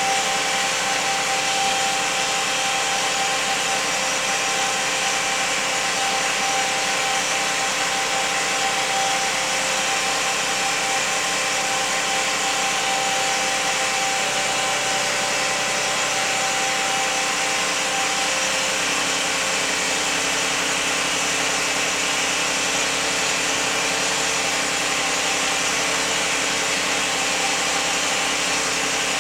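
2001 Lexus RX300 running with a steady mechanical whine over a broad hiss. The whine's pitch shifts slightly about two-thirds of the way through.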